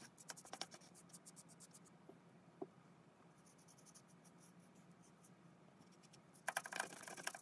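Paintbrush bristles brushing stain onto the bare wood inside a small wooden chest, in faint, quick, scratchy strokes. The strokes come thickly in the first two seconds, thin out, then pick up again near the end.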